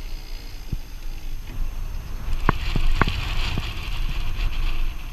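Boat under way on a lake: a steady low rumble of motor and wind noise, with a few sharp knocks in the middle and a rising hiss in the second half.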